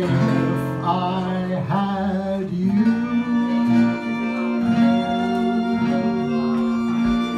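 Small jazz string band playing live: violin, acoustic guitars and accordion, with a male vocal. About three seconds in it settles into a long held note.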